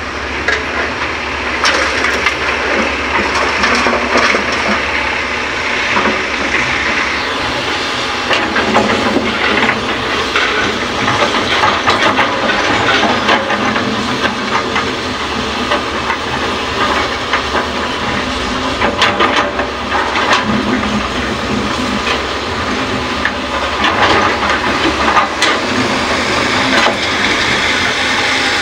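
Hyundai excavator working while it loads fill soil into a dump truck: continuous engine and hydraulic noise with a hissing quality, broken by irregular knocks and rattles.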